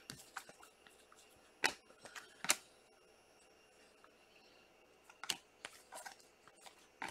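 Stiff Topps Chrome trading cards being slid and flipped through by hand, giving a few sharp clicks and soft rustles with a quiet stretch in the middle.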